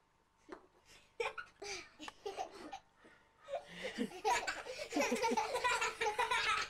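People laughing: a few short chuckles at first, then loud, continuous laughter from about halfway through.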